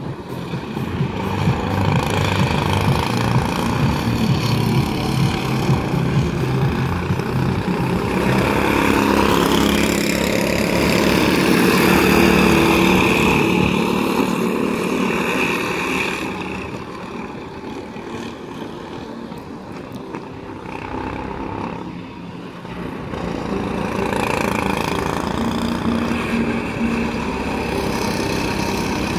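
Small go-kart engines running as karts lap the track, their pitch rising and falling with the throttle. The sound grows loudest as the karts pass close, about ten to fifteen seconds in, dies down for a few seconds after that, then builds again.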